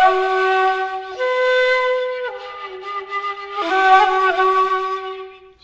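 Music of long held chords, several notes together, moving to a new chord about every second and fading out near the end.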